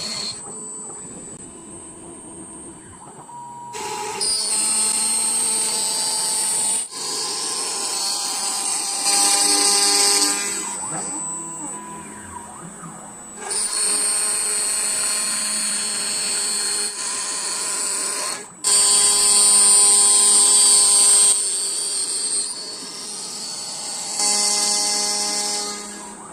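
A small power tool running with a high whine, its pitch and loudness shifting in spells of a few seconds as it works.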